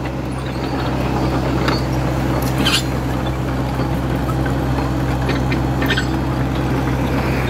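Diesel engine of a Yanmar compact crawler excavator running steadily at constant speed, with a few short knocks over it.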